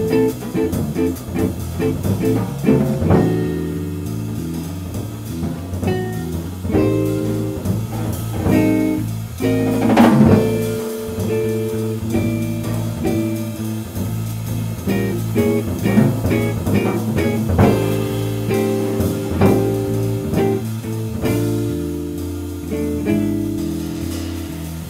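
Jazz trio playing: a Gretsch hollow-body electric guitar plays over a drum kit and bass. There is a loud, ringing drum-kit accent about ten seconds in.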